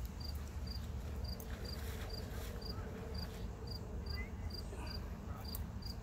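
A cricket chirping in a steady rhythm, about two short chirps a second, over a low steady rumble.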